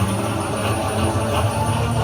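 Willy Wonka video slot machine playing its game music, with a steady low rumble underneath.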